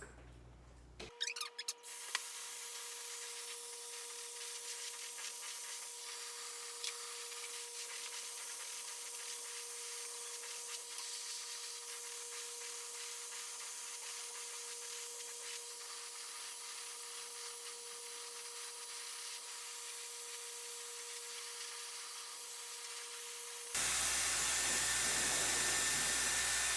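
Dyson Airwrap pre-styling dryer blowing at its highest heat and airflow onto hair: a steady rush of air with a steady hum. It starts about a second in and gets louder and fuller near the end.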